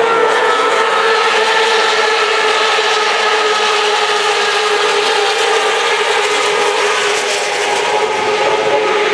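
A dense pack of Moto2 racing motorcycles, Honda 600 cc four-cylinder engines, at high revs going through a corner. The many engines overlap into a steady, loud mix of several pitches.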